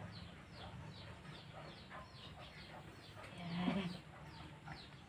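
Chicks peeping in a steady run of short falling chirps, about three or four a second, with one short louder sound about three and a half seconds in.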